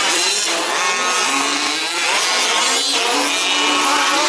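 Several 1/5-scale radio-controlled off-road trucks' small two-stroke petrol engines running together, their pitches rising and falling as the trucks rev and back off around the track.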